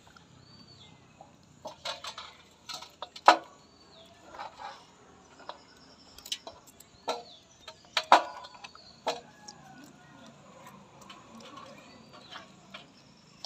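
Irregular sharp clicks and taps of a knife against a stainless steel plate as a small fish is scored and scaled, loudest about three and eight seconds in, with short high bird chirps now and then in the background.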